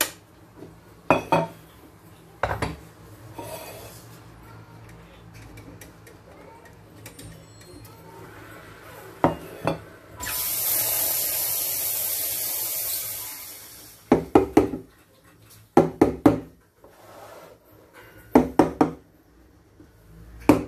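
Espresso machine steam wand hissing steadily for about four seconds, opened and shut at the steam knob. Around it, sharp clinks and knocks of stainless steel milk pitchers, in a quick cluster after the steam stops.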